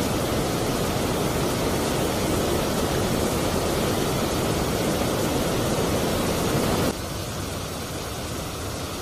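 Steady rush of river water running through rapids over boulders. About seven seconds in it cuts abruptly to a quieter, steady rush.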